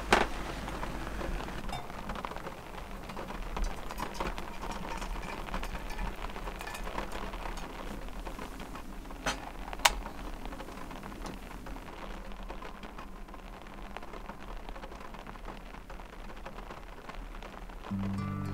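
Steady rain falling on the roof of a camper van, with a couple of sharp clicks about halfway through as a small electric tabletop grill is switched on. Guitar music comes in at the very end.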